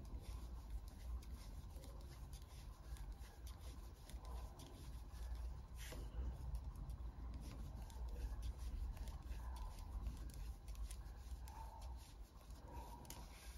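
Knitting needles and yarn being worked stitch by stitch: faint, irregular small clicks and rubbing, over a steady low hum.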